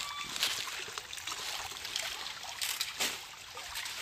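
Pond water trickling and splashing as a fine-mesh mosquito net is hauled and lifted through shallow water by people wading, with a few light splashes.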